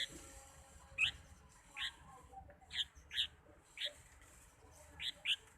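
Pet bird chirping: about eight short, high chirps at irregular intervals.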